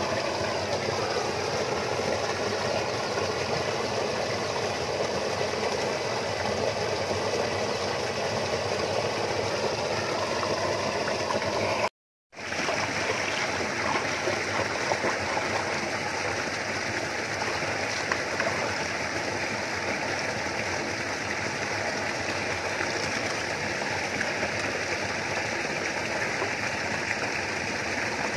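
Steady rushing noise of flowing water, cutting out briefly for about half a second near the middle.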